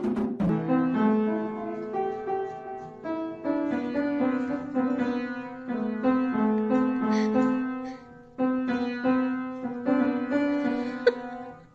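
Piano playing a melody of single notes over held lower notes, with a brief pause about eight seconds in.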